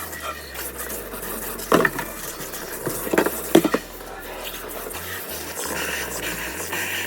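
Kitchenware being handled during cleanup: a few sharp clatters of dishes or utensils, about two seconds in and again around three and a half seconds, over a steady hiss.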